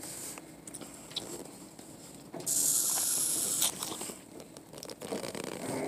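A boy drinking from a plastic sippy cup: sucking with small clicks, and a loud hiss about two and a half seconds in that lasts about a second.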